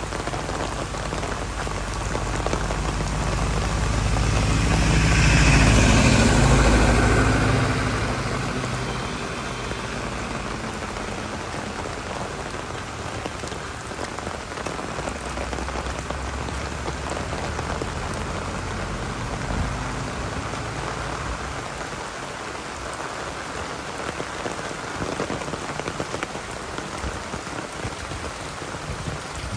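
Heavy rain falling steadily, pattering on the ground and surfaces. A louder, deeper rush builds and fades between about four and eight seconds in.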